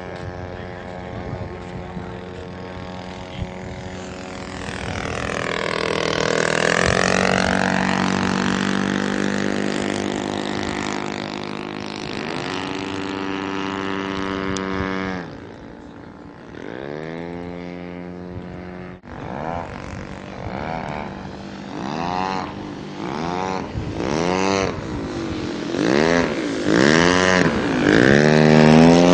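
Large radio-controlled model airplane's engine and propeller in flight, running steadily with its pitch sweeping up and down as the plane passes and turns. It goes quieter for a few seconds past the middle, then comes back with several quick pitch sweeps in a row near the end.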